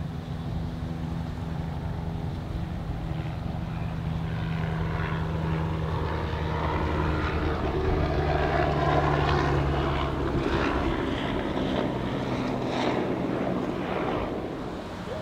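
Gianetti 70 motor yacht's engines running with a steady drone as it passes, with water rushing and splashing off the hull that grows louder toward the middle and eases off near the end.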